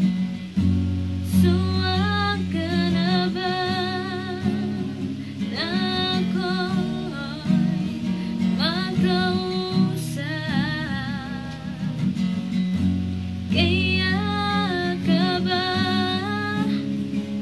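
A young woman singing in phrases over her own strummed acoustic guitar, a beginner's strumming; she sings with a sore throat. The voice pauses briefly past the middle while the guitar keeps going.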